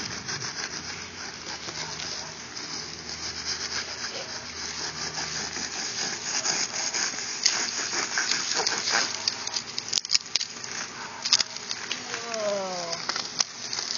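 Serrated knife sawing through the dry, cardboard-hard paper layers of an old wasp nest: a continuous rasping scrape with crackling strokes, getting choppier from about halfway on as the shell breaks open.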